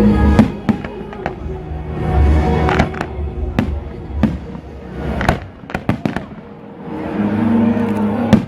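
Fireworks bursting: sharp bangs and crackles in irregular succession, sometimes several within a second. They sound over music with long held notes.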